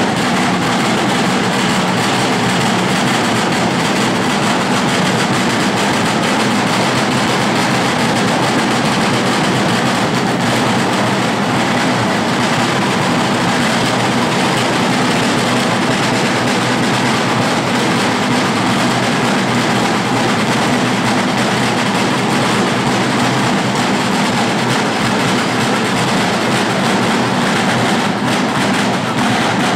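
A large corps of marching drummers beating big drums with sticks together, in a dense, steady, fast rolling rhythm.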